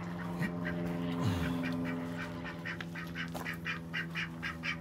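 Domestic ducks quacking, a quick run of short calls several times a second, over a steady low hum.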